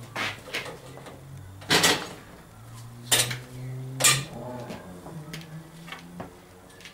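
Metal parts and hand tools clinking and knocking, a handful of sharp hits with the loudest just before two seconds and about four seconds in, over a steady low hum.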